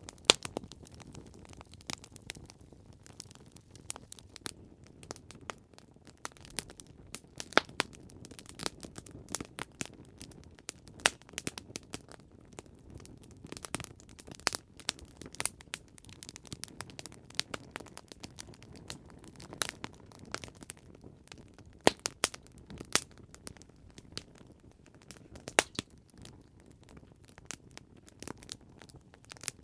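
Campfire crackling: irregular sharp pops and snaps of burning wood over a soft low rumble of the flames.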